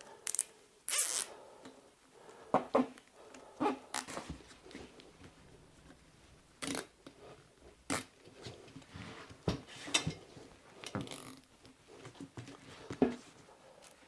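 Plastic zip ties being pulled tight around a motorcycle tyre, each one a short ratcheting zip. About a dozen come at irregular intervals.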